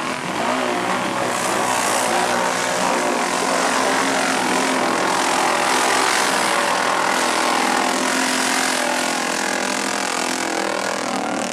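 Several ATV engines running at high revs, their pitch wavering up and down as the quads churn through deep mud.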